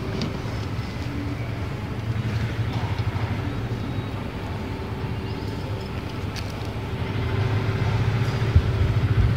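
Steady low rumble with a faint constant hum, typical of background traffic or machinery.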